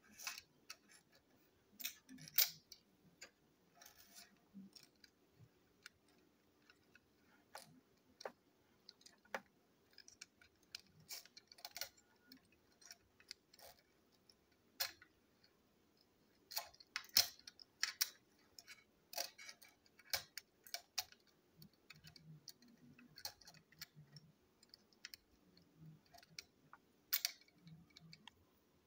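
Irregular clicks and taps of small hard-plastic toy-train parts being handled, pressed and fitted together by hand on a tabletop.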